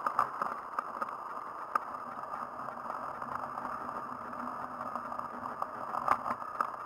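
A racing handbike rolling along a village road, heard from a camera mounted on the bike: a steady hiss of tyres and air with scattered sharp clicks and rattles from the frame and drivetrain.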